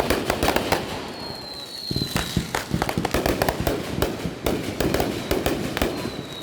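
Fireworks going off in rapid strings of sharp pops and bangs, with a high whistle gliding slightly down in pitch from about one to two and a half seconds in, and another whistle starting near the end.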